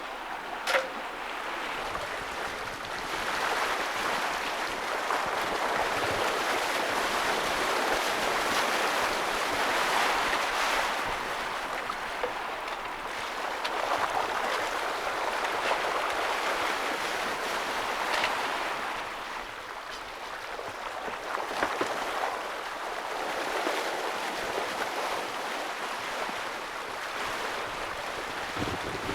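Water rushing and splashing past a small sailing boat's hull under sail, with wind: a steady hiss that swells and eases every few seconds as the boat meets the waves. A single sharp knock sounds about a second in.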